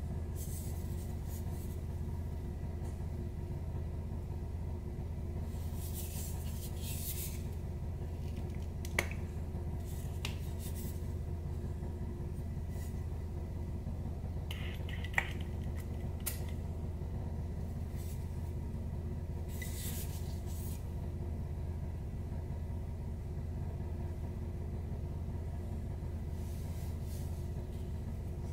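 A glass eau de toilette bottle and its cap being handled: a few light clicks and taps, two of them sharper, and a few short hisses, over a steady low hum.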